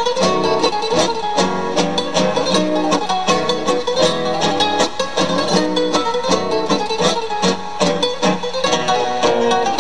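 Acoustic guitars playing a lively plucked folk tune, with fast, closely spaced notes.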